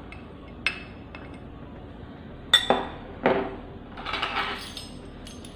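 Slotted steel spoon clinking against a glass cup and glass bowl as ground chilli powder is scraped out. There is a light tap about a second in, a few sharp clinks in the middle, and a brief scrape a little later.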